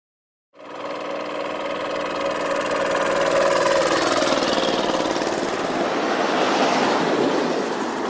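A motor scooter's engine running as it comes up the road and passes by. It fades in after about half a second, is loudest in the middle and shifts in pitch as it goes past.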